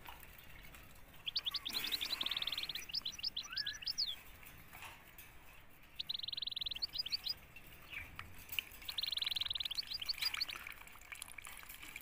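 Canary singing: three song phrases, each a fast rolling trill followed by a quick run of sharp chirps.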